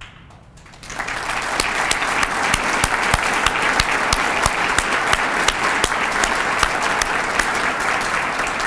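Audience applause breaks out about a second in, with sharp nearby hand claps standing out about three times a second.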